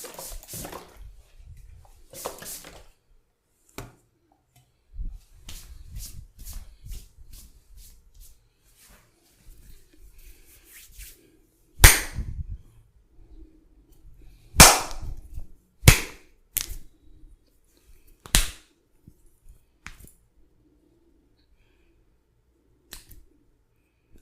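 A barber's upper-body massage: soft rubbing and patting of hands on skin, then five sharp, loud pops spread over about seven seconds in the second half.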